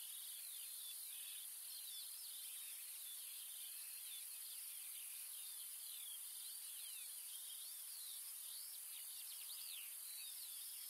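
Faint open-country ambience: many small birds chirping in quick, high notes over a steady high hiss.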